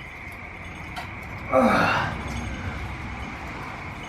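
A man's grunting, straining exhale on a rep of a heavy cable high pull. It comes once, about a second and a half in, and lasts under a second, falling in pitch.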